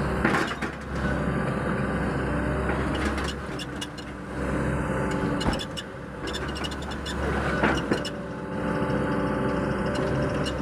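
Excavator's diesel engine running steadily, its level dipping and swelling, with scattered sharp clanks and knocks.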